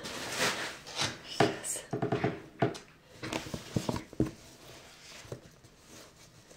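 Stiff paper gift bag rustling and crinkling as hands handle it and work at its ribbon handles: a quick run of short crackles and taps, busiest in the first four seconds, then only a few faint ticks.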